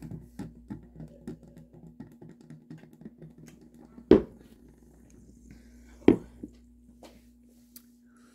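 Soda being drunk from stainless steel tumblers, with small faint swallowing and handling clicks for the first few seconds. Two sharp knocks come about four and six seconds in, over a faint steady hum.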